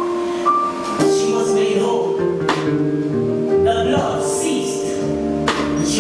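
Gospel worship music: held chords over a changing bass line, with two sharp hits about three seconds apart.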